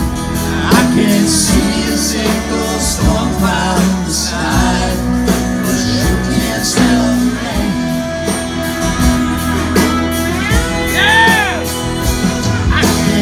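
Country band playing live: drums, electric guitar and bass, with some singing.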